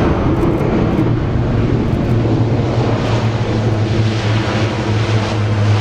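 Lockheed Martin LM-100J Hercules's four Rolls-Royce AE 2100 turboprops with six-blade propellers running as it rolls out on the runway after landing. A steady low propeller hum sits under a broad engine roar, and the hum firms up about a second in.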